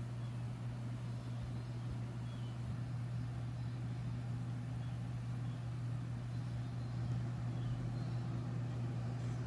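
A steady low hum that stays even throughout, with no distinct events.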